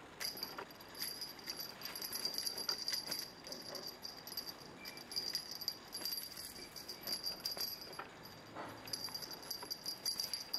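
Small bell on a feather wand cat toy jingling in quick, irregular shakes as the toy is waved and batted at.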